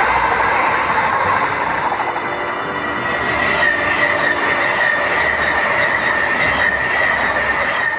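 Jakarta–Bandung high-speed electric train (KCIC400AF multiple unit) running past at speed, a steady rushing running noise with a high whine that grows clearer after about three seconds.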